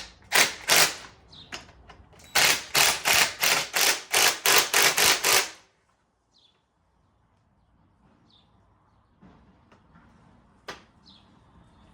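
A hand tool worked in quick repeated strokes, about three a second, with a short pause, stopping about five and a half seconds in. After it come a few faint bird chirps and one sharp click.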